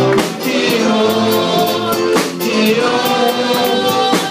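Gospel praise-and-worship singing: voices holding long notes over instrumental backing, with regular drum-like strikes keeping the beat.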